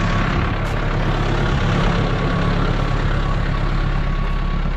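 Massey Ferguson farm tractor's diesel engine running steadily.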